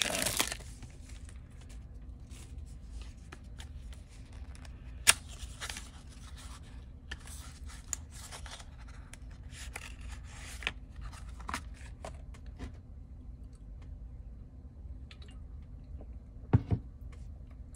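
The wrapper and cards of a trading-card starter deck rustling and tearing as the deck is opened, with the cards handled and a few sharp clicks and taps.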